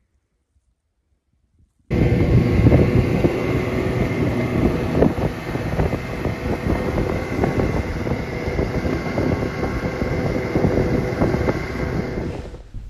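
Snowmobile engine running steadily under way, heard from the rider's seat with wind rushing past the microphone. It starts suddenly about two seconds in after near silence and fades out near the end.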